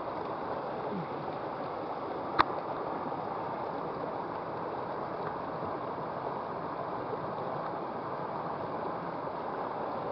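Small river water flowing steadily, with one sharp click about two and a half seconds in.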